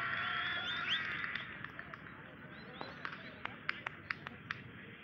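Distant voices shouting across an open cricket ground in the first second or so, then fading, followed by about a dozen short, sharp high chirps at irregular intervals.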